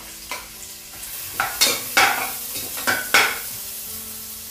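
Chopped onions sizzling in hot oil in an aluminium pressure cooker, stirred with a steel ladle. The ladle scrapes and knocks against the pot about five times in the middle.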